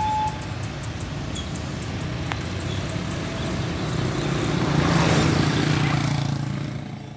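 Motorcycles and a light truck running as they cross the railway tracks, loudest about five to six seconds in as the truck goes over, then fading out near the end. Just after the start, the last of the level crossing's two-tone warning signal stops.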